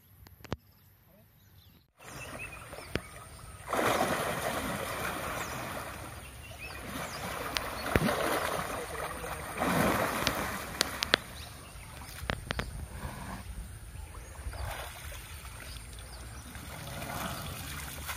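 An Asian elephant splashing and sloshing about in a muddy pond as it sinks into the water and moves, with louder surges of splashing a few times. The first couple of seconds are quiet before the splashing starts.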